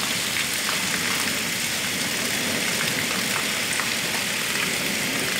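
Hailstorm with heavy rain pelting down on a paved yard: a steady, dense hiss with scattered sharp ticks of hailstones striking.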